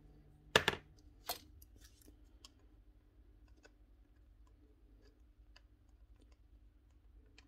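Two sharp clicks, the first and loudest about half a second in and a second one just under a second later, then faint scattered ticks and taps. This is work at the broken spark plug of a Paslode gas nailer, trying to get it out.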